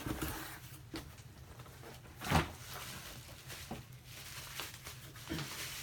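Handling noise as a replacement laptop screen is taken out of its packaging: a few light knocks and rustles, with one louder knock a little over two seconds in.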